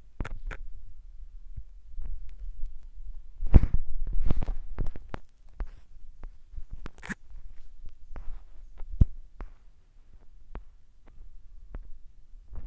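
Phone handling noise: scattered faint taps and thumps with a low rumble, as fingers type on the phone's touchscreen keyboard close to its microphone. There are a few louder bumps about three and a half to five seconds in.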